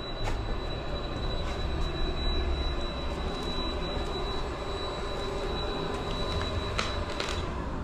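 Steady hiss of expanding foam being sprayed from a foam gun into gaps in floor insulation, with a few sharp clicks near the start and near the end.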